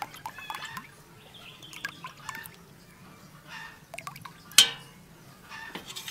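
Liquid dripping and pouring as red colouring runs in a thin stream from a glass bottle into a steel bowl of batter, with small scattered clicks. One sharp knock a little past the middle.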